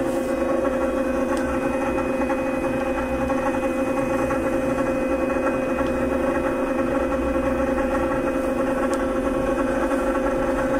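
Therapeutic vibration platform running, shaking a person's elbows resting on it: a steady mechanical hum at one constant pitch.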